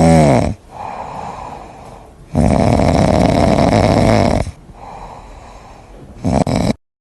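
Loud snoring: long rasping breaths, about three seconds apart, with quieter breaths between them. It cuts off suddenly near the end.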